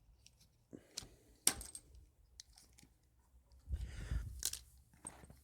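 Handling noises: a few scattered sharp clicks and knocks, the loudest about a second and a half in, then a short rustle with a low rumble around four seconds in.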